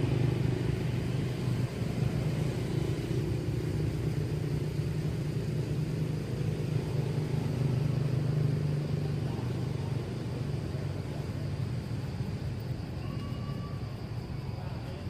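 A steady low engine hum from a motor vehicle running nearby, easing off about two-thirds of the way through.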